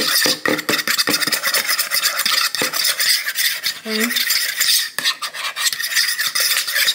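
A utensil stirring cornstarch into a thin soy-based sauce in a bowl, with fast, rhythmic clinking and scraping against the bowl and a brief pause about five seconds in.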